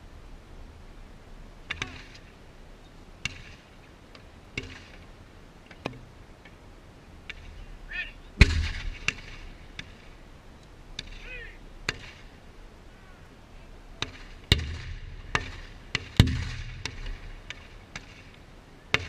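Small muzzle-loading field cannons firing in turn: fainter sharp reports early on, then three loud booms with a low rumbling tail, about 8, 14.5 and 16 seconds in. Faint shouted voices come in between.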